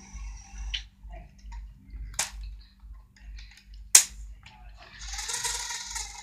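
Lego Technic model being handled: small plastic ticks, two sharp clicks with the second louder, then a dry rattling of plastic parts being moved near the end.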